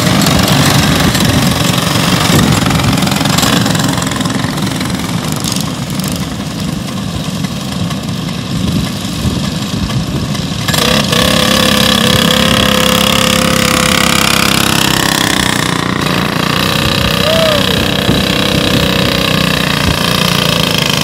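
Racing kart engines running on the track, a dense steady din for the first half; about halfway through the sound changes abruptly and higher engine notes rise and fall as karts accelerate past.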